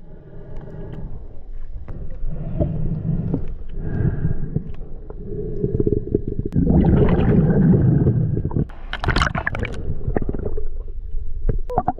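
Muffled underwater sound picked up by a camera submerged in a river: low rumbling and gurgling of moving water and bubbles with scattered small knocks, loudest about seven to eight seconds in, then a few sharp crackling bursts around nine seconds.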